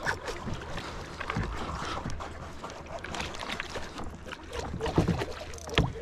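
Noises of a plastic kayak afloat during a fish fight: water sloshing, wind on the microphone, and many small clicks and knocks of gear and hands, with low bumps against the hull, the loudest about five seconds in and again just before the end.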